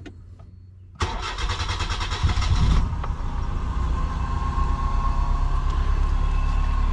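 A car engine being cranked by its starter about a second in. It fires within about two seconds and settles into a steady idle. This is its first start on a newly installed Speeduino-based ECU, and it starts and runs.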